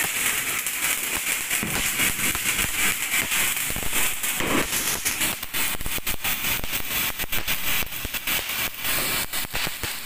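Firework fountains (flower pots) spraying sparks: a steady hiss full of dense, rapid crackling.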